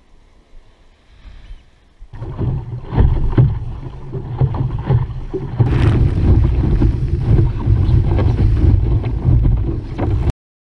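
Wind buffeting the microphone of a camera on a sailing dinghy, with water rushing and splashing against the hull as the boat sails fast in a fresh breeze. It starts suddenly about two seconds in after faint wind and cuts off abruptly just before the end.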